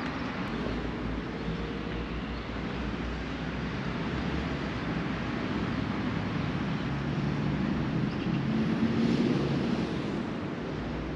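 Road traffic: a steady rumble with an engine hum that swells and fades about three-quarters of the way through, like a vehicle passing.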